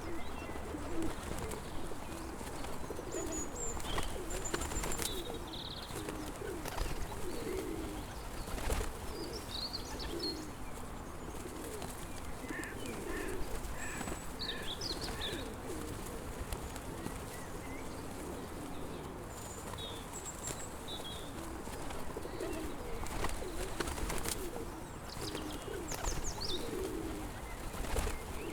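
Pigeons cooing in repeated low, throaty phrases, with smaller birds chirping higher above them. A few brief sharp knocks sound at scattered moments.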